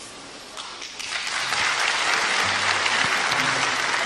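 A large theatre audience applauding, swelling in about a second in and holding steady. Low musical backing notes come in faintly under the clapping about halfway through.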